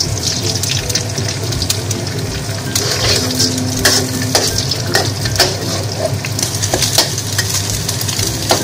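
Egg white poured into a hot oiled wok sizzles. From about three seconds in, a metal wok spatula stirs and scrambles it, with scattered clinks and scrapes of the spatula against the wok.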